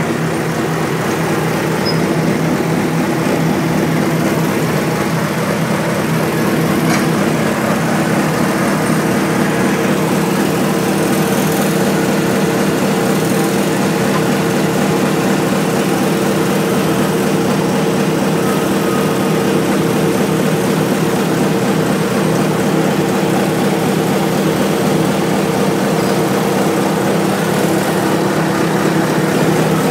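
Earthmoving machine's engine running steadily at a constant speed, a low even drone.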